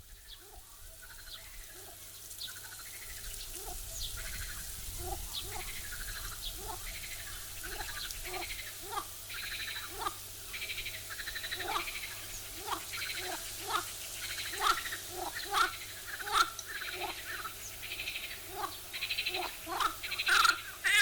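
Animal calls: many short call notes repeated a few times a second, joined by a fast buzzing trill, growing louder toward the end.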